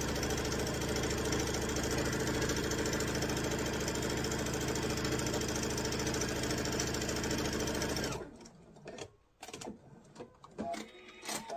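Sewing machine running steadily, stitching quilt patches that are fed through one after another without stopping, then stopping abruptly about eight seconds in. A few faint clicks and taps follow.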